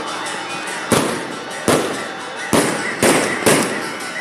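Firework bangs going off in a loose, uneven series: five sharp reports about half a second to a second apart, each trailing off in a brief echo, over steady background noise.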